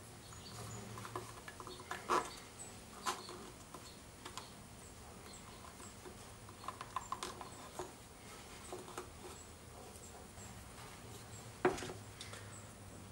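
Quiet handling of the mitered eastern red cedar box sides and masking tape: scattered light clicks and taps as the corners are pressed together and taped, the sharpest about two seconds in and near the end.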